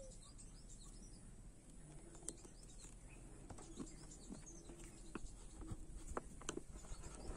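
A few faint clicks and handling sounds of a plastic motorcycle indicator flasher relay being pulled from its wiring connector and a new one plugged in, with birds calling faintly in the background.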